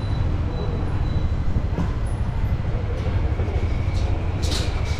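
Outdoor street ambience: a steady low rumble, with a short hiss about four and a half seconds in and a faint high tone sliding downward near the end.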